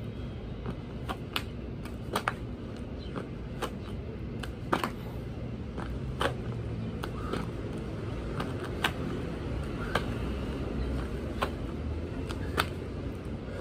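Steady low outdoor traffic rumble with short, sharp taps and thumps scattered irregularly through it, from a person doing burpees: hands clapping and landing.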